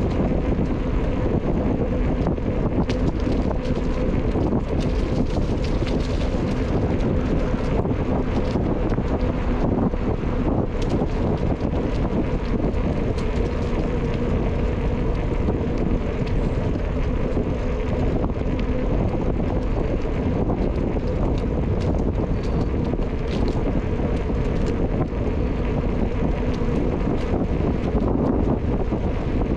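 Wind buffeting the microphone of a camera on a moving bicycle, a steady rushing noise with a low steady hum underneath and occasional faint ticks.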